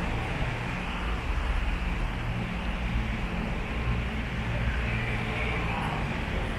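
Town-centre street ambience: a steady hum of road traffic.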